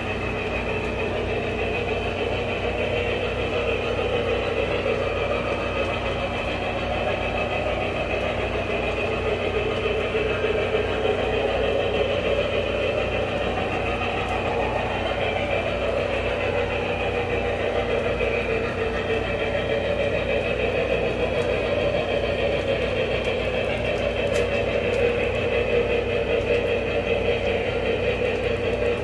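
Lionel Vision Line Challenger O scale model steam locomotive running along the track, giving a steady mechanical rumble of wheels and motor over a constant low hum. It grows a little louder toward the end.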